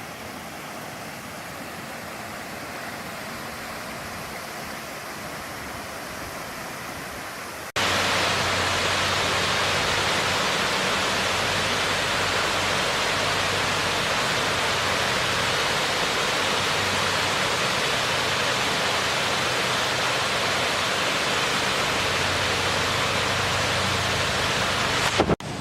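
Waterfall: a steady rush of falling water, which jumps much louder at a cut about eight seconds in.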